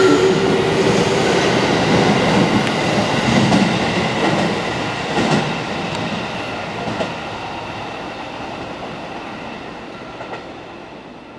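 JR Central 311 series electric train departing from the platform and drawing away, with its wheels clacking over rail joints. Its running noise fades steadily as it leaves.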